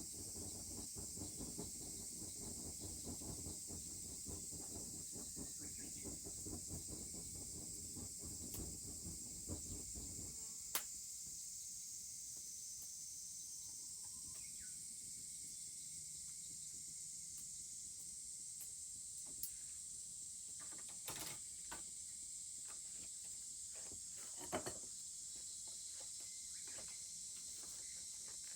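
Steady high-pitched chorus of insects shrilling outdoors. A dense low rumbling crackle underlies the first ten seconds and stops abruptly. A few sharp clicks or cracks are scattered through the rest, the loudest about ten seconds in.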